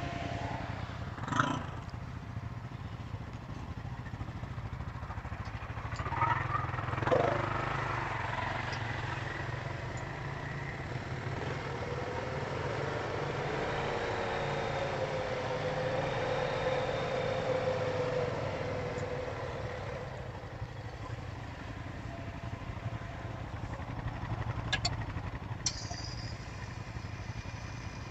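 ATV engines running, with a steady low hum throughout. Around the middle, one engine note rises and falls in pitch for several seconds. A few short knocks sound near the start and about six to seven seconds in.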